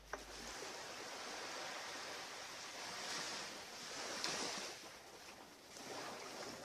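Surf washing onto a beach: a steady hiss of breaking waves that swells twice, eases, then builds again near the end.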